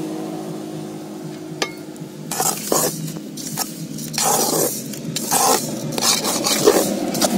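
A metal ladle handle stirring jaggery syrup into coarsely pounded sesame in an aluminium pot: irregular gritty scrapes against the pot from about two seconds in. Before that, a steady hum fades away.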